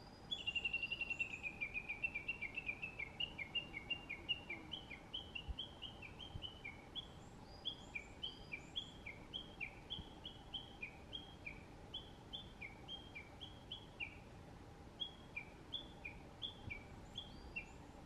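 Japanese bush warbler (uguisu) giving its long 'tani-watari' (valley-crossing) call. It opens with a fast run of notes falling in pitch, then settles into a long, even series of short notes at about three a second, alternating between two pitches.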